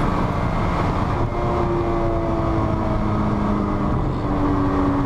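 Lotus Exige V6 Cup's supercharged 3.5-litre V6 pulling hard under full throttle up a steep climb, heard from inside the cabin over heavy road and wind noise. The engine note holds fairly steady.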